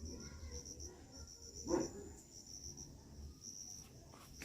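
Crickets chirping in a steady, pulsing high trill, with one short puppy whimper about two seconds in.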